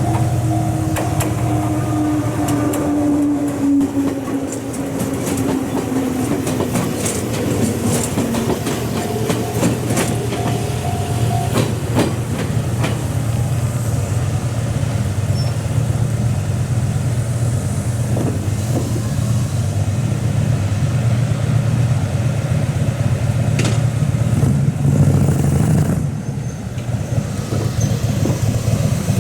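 Electric train at a station: the motor whine falls in pitch as it slows during the first few seconds, with clicks of wheels over rail joints, then a steady low hum from the standing train.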